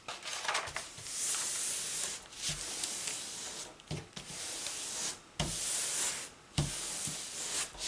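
A hand rubbing and smoothing across the back of a diamond painting canvas laid on a table to flatten it: repeated papery rubbing strokes with short pauses between them.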